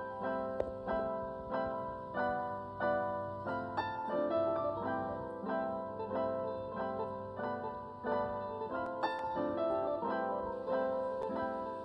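Light instrumental background music: a steady run of short, ringing plucked or keyboard-like notes.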